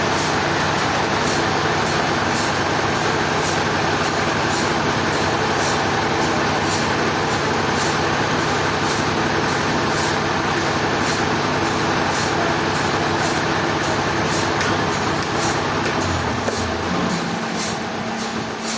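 Heavy sawmill machinery running steadily, an engine drone under a dense mechanical noise with a light regular ticking; about sixteen seconds in the low engine note drops away and the sound eases off a little.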